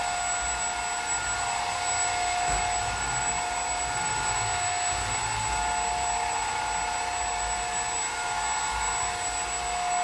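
Maircle S3-Mate cordless stick vacuum running steadily, its motor giving a constant high whine over a rush of air.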